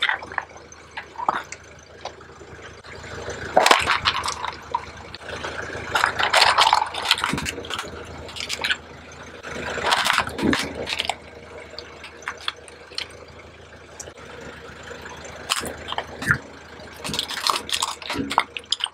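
Car tyre rolling over thin plastic pieces on gritty concrete, the plastic crackling and snapping as it is flattened and broken, in uneven bursts with scattered clicks between them.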